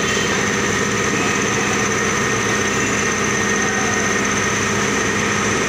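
Steady, unbroken drone of running factory machinery, a continuous hum with several steady tones.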